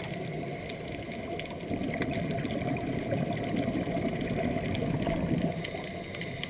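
Muffled underwater rumble of a scuba diver's exhaled bubbles venting from the regulator, heard through a GoPro's waterproof housing. It swells from about two seconds in and eases off near the end.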